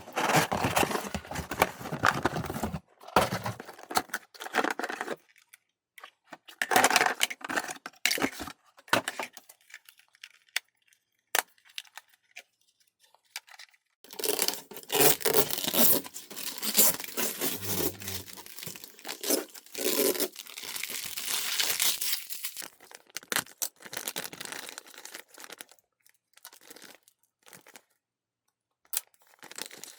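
Packaging being handled and unwrapped: rustling, crinkling and tearing in irregular bursts with short silent gaps.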